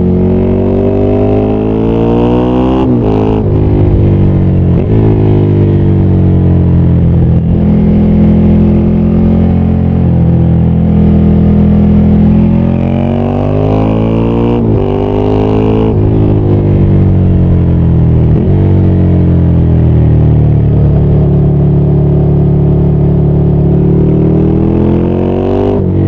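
Ducati Scrambler 800's air-cooled L-twin engine under way, its pitch climbing as the bike accelerates and dropping suddenly at several gear changes, with stretches where it falls away as the bike slows.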